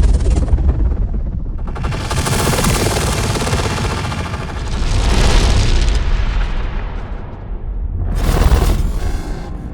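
Designed dark cinematic horror whooshes: noisy swells that rise and fade over a deep, continuous low rumble, a long one about two seconds in, another around five seconds, and a shorter, sharper one near the end.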